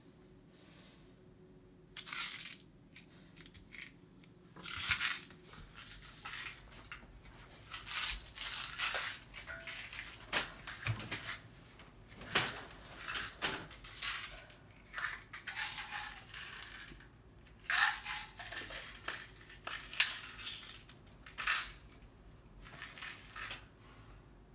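Irregular rustling and shuffling of a comforter and bedding, with a few knocks, as a person climbs up onto a raised bunk bed.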